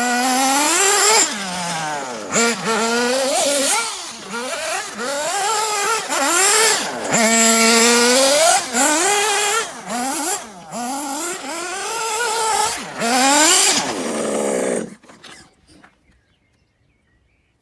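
Nitro engine of a Kyosho Inferno MP9 TKI4 1/8-scale RC buggy revving up and down over and over as it is driven, its pitch rising and falling with the throttle. The sound cuts off abruptly near the end.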